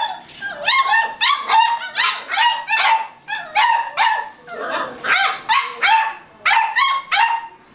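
Beagle puppies barking: a rapid string of high-pitched yips, about three a second, with brief pauses.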